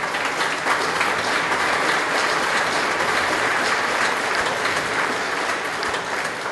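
A gathering of standing guests applauding, many hands clapping together, the applause beginning to die down near the end.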